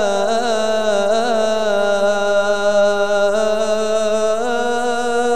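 A singer holding one long, drawn-out note of an Arabic patriotic song, with small ornamental turns in pitch along the way.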